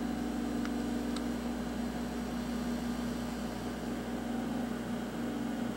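Steady electrical hum from a Hughes HTT-1000-C04 reflow solder power supply while it heats the heat bar through its program.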